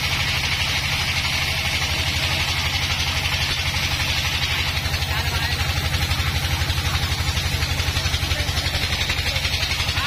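Band sawmill cutting a dry teak log: the engine's steady, fast low throb under the hiss of the band blade running through the wood. The hiss eases a little about halfway.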